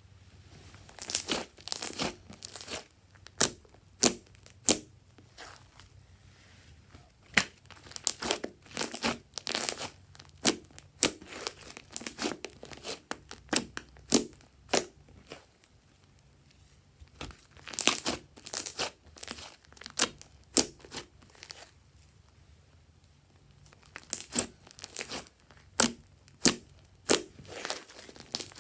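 Slime being squished and stretched by hand, giving clusters of sticky crackles and pops, broken by a few short pauses.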